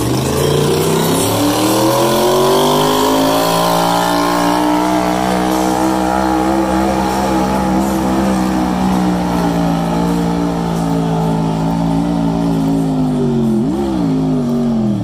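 Motorcycle-engined mini modified pulling tractor running at full throttle during a pull. The revs climb over the first few seconds, hold high and steady, spike briefly near the end, then begin to fall.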